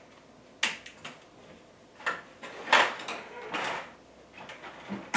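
Tomytec bus-system roadway sections and their plastic packaging being handled on a table: a series of sharp plastic clicks and knocks, the loudest about halfway through, with brief rattles between them.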